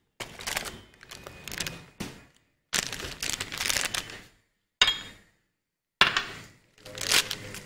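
Kitchen handling noises as cornflour is taken out: repeated rustling and crinkling of a packet, broken by a few sharp knocks.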